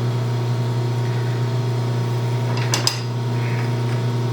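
Steady low machine hum with metal clinks from adjusting a four-jaw lathe chuck while truing a part: a quick pair of sharp metallic clicks comes about two and a half seconds in.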